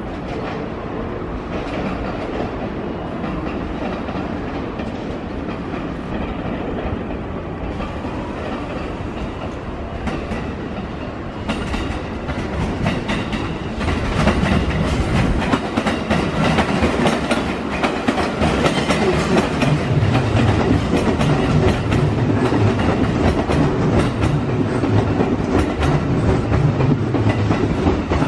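JR West 205 series 1000 electric commuter train running past over pointwork, its wheels clacking on the rail joints and switches. It gets louder about halfway through as the cars come close.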